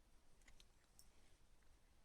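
Near silence, with a few faint, short clicks about half a second in and about a second in.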